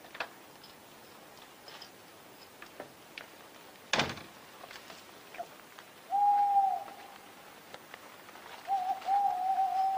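A sharp knock about four seconds in, the front door shutting. Then a tawny owl hoots: one long, held hoot, a pause, and a second, wavering hoot near the end.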